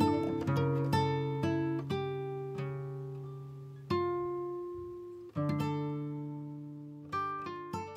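Background music of plucked acoustic guitar: picked notes, then strummed chords about four and five and a half seconds in, each left to ring and die away.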